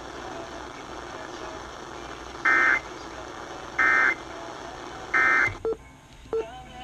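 Three short, loud bursts of Emergency Alert System end-of-message data tones, evenly spaced about a second and a half apart, heard over a radio with a steady hiss underneath; they mark the close of the Required Monthly Test. A few faint short blips and clicks follow near the end.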